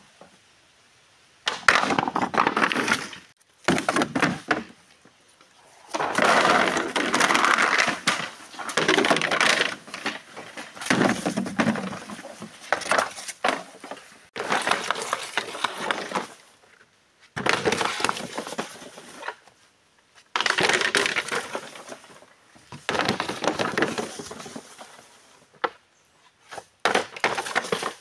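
Dry bamboo canes and dead bamboo leaves crackling and snapping, in about a dozen loud bursts of one to two seconds with short pauses between.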